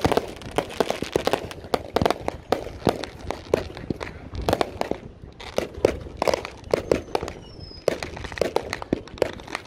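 Many fireworks going off at once: a dense, irregular run of bangs and crackling pops, with a faint whistle falling in pitch about seven seconds in.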